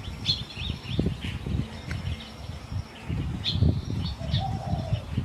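Small birds chirping in short, repeated calls over a steady low rumble of outdoor noise on the microphone.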